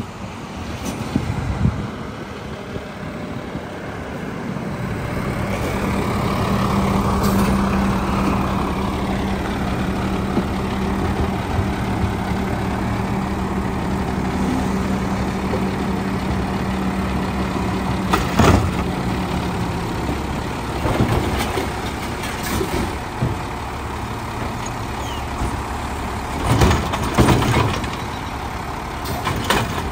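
Mack LR garbage truck with a McNeilus side-loader body running, its engine speeding up after about five seconds to a steady higher pitch for about fifteen seconds while the packer works, then settling back toward idle. A sharp loud noise about eighteen seconds in and several more near the end.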